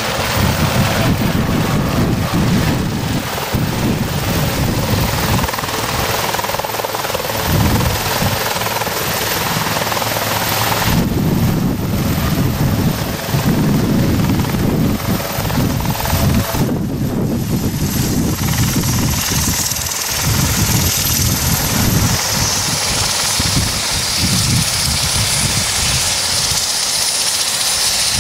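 Sikorsky S-76 air ambulance helicopter setting down and running on the ground: a steady loud rotor beat with turbine noise.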